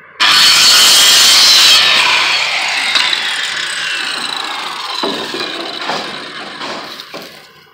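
Circular saw cutting through a six-inch wooden fence board, starting suddenly and cutting for about a second and a half. After the cut, the blade's whine slides steadily down in pitch over several seconds as it coasts to a stop.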